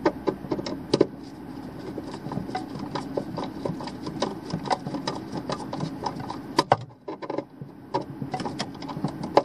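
Hand screwdriver tightening the terminal screws of a Surge Guard hardwired surge protector, making many small irregular clicks and scrapes of metal on metal. A steady low hum runs underneath and drops away about seven seconds in.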